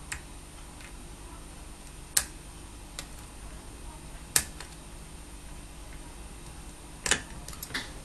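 Sharp metal clicks of a pick and tension tool working the pins of a cruciform lock during single-pin picking: a few isolated clicks, two louder ones about two and four and a half seconds in, and a quick cluster of clicks near the end.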